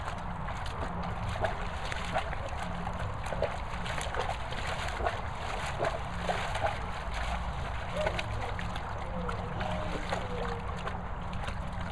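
Water splashing and sloshing in a plastic paddling pool as a Dogue de Bordeaux wades and stamps its feet in it, with many short splashes.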